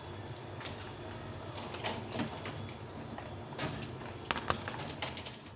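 A dog at its plastic bowl: scattered small clicks and clinks, with a sharp pair about four and a half seconds in, over a steady low background hum.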